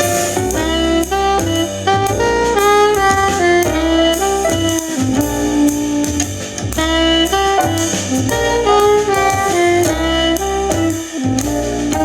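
Jazz music with a melodic horn line over bass and drums, played through a Sony SRS-X33 Bluetooth speaker and picked up by a microphone.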